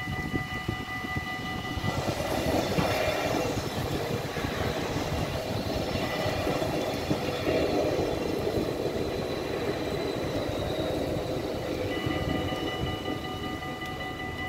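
Dutch level-crossing bells ringing steadily, then a Stadler GTW diesel multiple unit passes from about two seconds in, rumbling over the rails while the bells go quiet. The bells sound again near the end as the train clears the crossing.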